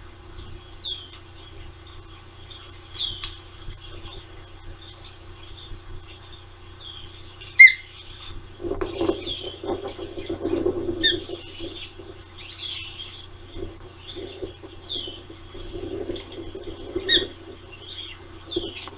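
Ospreys calling: short, high whistled chirps repeated every second or two. Underneath runs a steady low hum, and from about halfway a lower, rough noise comes and goes.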